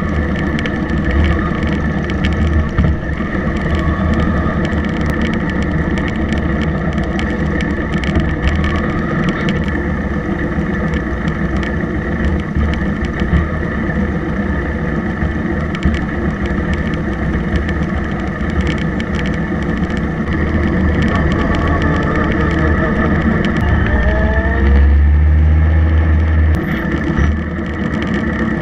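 Motorcycle engines running at low speed as a group of motorcycles moves off, with the nearby bike's engine steady throughout. About three-quarters of the way through, the engine pitch rises as a bike accelerates, and a heavier low rumble follows for a couple of seconds.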